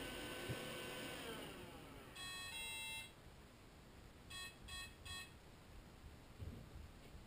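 iRobot Scooba 230 robotic mop's motors humming, then falling in pitch and winding down to a stop about a second in, followed by electronic beeps: a two-part tone, then three short beeps. This is the robot's alert as it stops mid-cycle, stuck.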